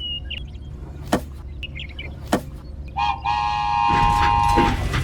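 A small vehicle engine runs with a steady low drone, with a few sharp clicks. About three seconds in, a horn sounds for nearly two seconds.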